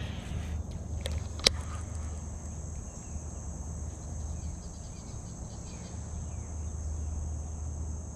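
Insects trilling steadily at a high pitch over a low rumble, with one sharp click about a second and a half in.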